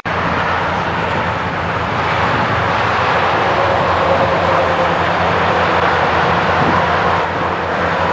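Car travelling at highway speed: steady road and wind noise over a low, even engine hum.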